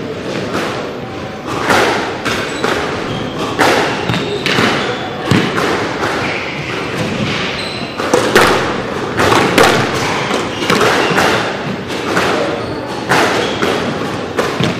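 Squash ball repeatedly struck by rackets and smacking off the front wall and floor, an irregular run of sharp thuds, a couple a second, that echo in the court.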